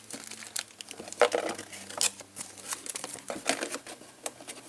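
A clear plastic packing bag crinkling and rustling in irregular crackles as it is handled and lifted out of a cardboard box, loudest about a second in and again at two seconds.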